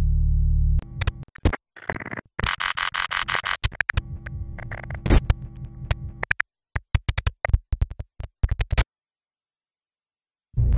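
Glitch electronica: a low synth drone cuts off abruptly after about a second, giving way to stuttering digital clicks and short blocks of noise. The track drops to silence for about two seconds near the end before another short burst.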